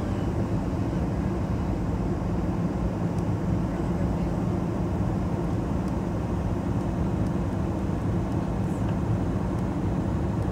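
Steady low drone inside an airliner cabin in flight: engine and airflow noise heard at a window seat.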